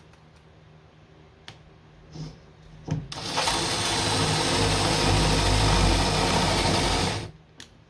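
Power drill spinning a 1/2-inch plug cutter on an extension, cutting into wood for about four seconds. It starts about three seconds in and stops sharply, after a few light handling clicks.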